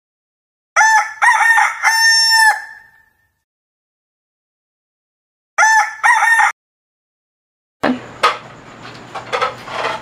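A rooster crowing: a full crow ending in a long held note, then a shorter crow about six seconds in. Near the end, room noise with a few light clicks begins.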